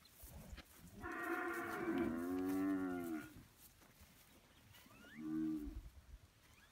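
Young bull mooing twice: a long call about a second in, and a short call about five seconds in.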